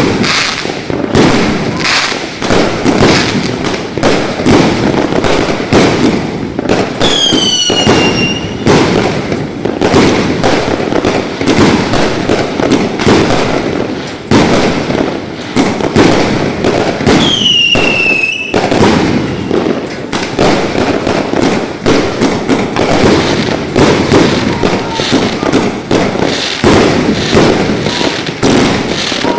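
Consumer fireworks and firecrackers going off in a dense, continuous barrage of sharp cracks and bangs. Two whistles drop in pitch, one about seven seconds in and one about seventeen seconds in.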